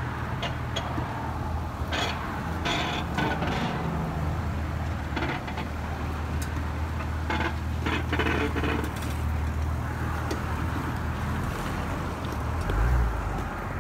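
Lifted Jeep Wrangler JK's engine running at low revs as it crawls slowly down a rocky embankment and drives past, with scattered crunches and scrapes from the tyres on rock, dirt and brushing grass. A low surge is heard near the end.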